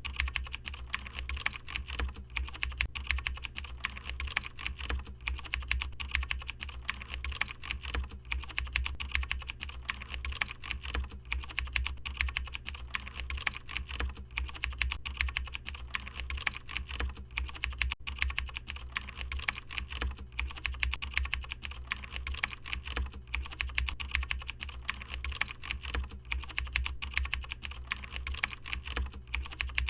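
Fast, continuous computer keyboard typing: a dense run of keystroke clicks with no pauses.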